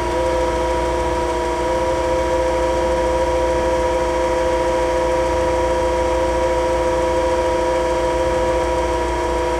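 Cylindrical grinder running with its hydraulics and grinding wheel on: a steady, layered machine hum and whine. A new steady whine comes in right at the start as the work head spins in a newly selected gear range.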